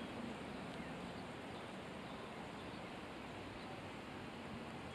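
Quiet outdoor ambience: a faint, steady hiss with a few faint, short bird chirps.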